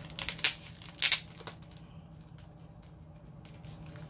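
Plastic comic-book bag crinkling and its tape tearing as it is opened, with two loud rustles in the first second or so, then softer handling.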